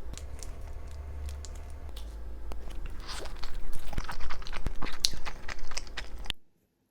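Close-miked chewing and biting of food, with crisp crunches and wet clicks that grow louder about halfway through, then cut off abruptly near the end.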